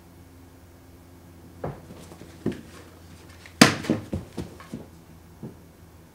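A run of knocks and thuds from wooden pieces being carried, knocked together and set down, mixed with quick footsteps. The sharpest knock comes about three and a half seconds in and is followed by a quick string of smaller ones.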